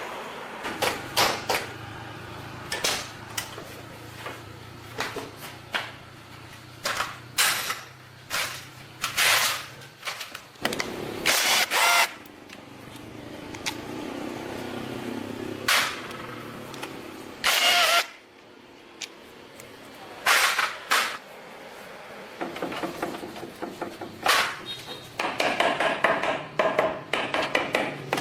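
Workshop work sounds: a string of sharp clicks and knocks from tools on metal over a low steady hum, turning into a dense rattle near the end.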